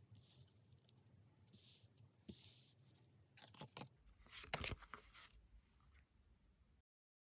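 Faint rustling and sliding of tarot cards handled on a table, with a few short rustles and then a quick run of light taps and clicks, before the sound cuts off completely near the end.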